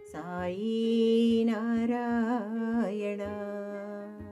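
A woman's voice singing a drawn-out, wavering melodic line of a Hindu devotional bhajan without clear words, over a steady low held note, fading toward the end.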